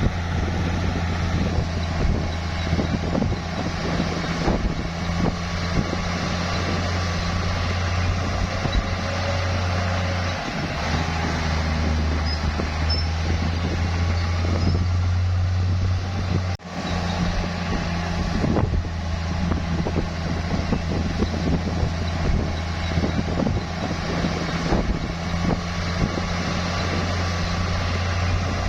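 Heavy bulldozer's diesel engine running under load, a steady low drone with scattered knocks, its note dropping lower about ten seconds in. A brief dropout about two-thirds of the way through.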